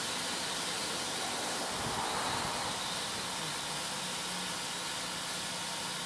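Steady outdoor background hiss with a faint low hum, and a soft bit of handling noise about two seconds in.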